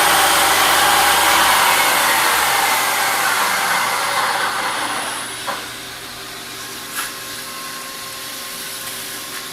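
Tree Journeyman 250 CNC milling machine spinning down: its steady motor whine falls in pitch and fades over about five seconds. A quieter machine hum remains, with a couple of sharp clicks.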